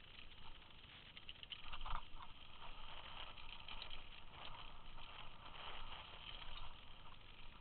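Mountain bike rolling down a rocky dirt trail: tyres crunching over gravel and stones with irregular rattling knocks, the loudest about two seconds in.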